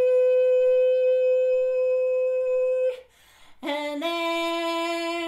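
A solo voice singing long held notes: one note held steady for about three seconds, a short breath, then a lower note held to the end.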